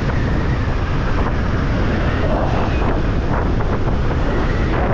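Steady low rumble of a moving vehicle with wind buffeting the microphone.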